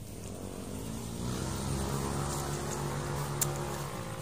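A motor engine running steadily, its pitch dipping slightly near the end.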